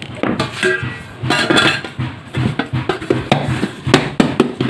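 Stainless steel plate and aluminium cake tin knocking, clinking and scraping against each other as the tin is turned upside down onto the plate, with short metallic rings after some of the knocks.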